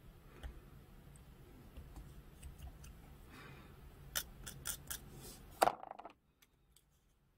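Small hobby blade scraping the edge of a plastic model part (the seam-scraping step), giving light scratching and a run of sharp ticks, then one louder click about five and a half seconds in.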